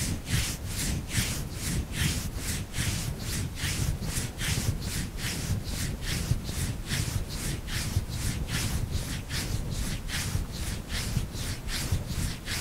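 A hand rubbing and massaging the back of the neck, heard close up on a clip-on microphone at the collar: steady, even strokes of skin and fabric friction, about three a second.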